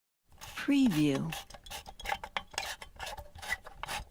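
An object being twisted and tightened by hand: a dense run of small clicks, creaks and rubbing scrapes, starting just after a brief silence.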